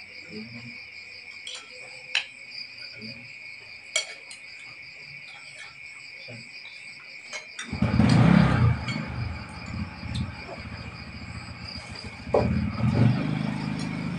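Crickets chirping in a steady high chorus, with a few sharp clinks of spoons on plates. About eight seconds in a much louder low sound, which could be voices or a passing engine, comes in, and it returns near the end.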